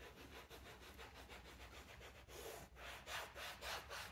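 Microfiber cloth rubbing leather conditioner cream into a leather car seat in quick, even back-and-forth strokes. The strokes grow firmer and slower, about three a second, near the end.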